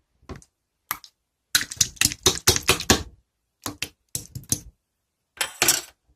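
Rapid, sharp clicks in six bursts separated by short pauses; the longest, densest run starts about a second and a half in and lasts over a second.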